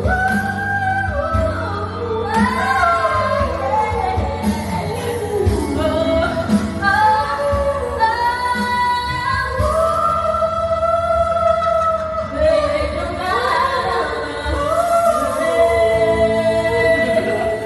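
A woman singing a melody with long held notes and sliding runs over backing music with a steady bass line.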